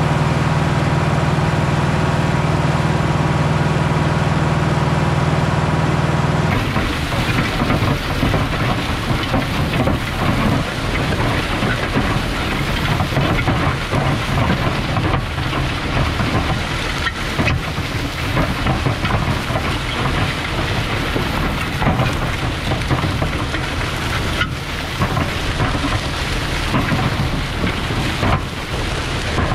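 Caterpillar 3208 V8 diesel of a White 4-225 four-wheel-drive tractor running steadily while pulling a disc harrow. About six seconds in it gives way to the disc blades cutting through sandy soil and corn stubble: a dense, uneven crackling and rattling over a low drone.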